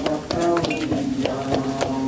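Devotional kirtan music: held sung or played notes over a beat of sharp percussion strokes.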